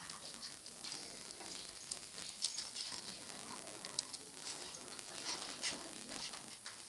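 Computer keyboard keys clicking irregularly as text is typed, over a steady background hiss.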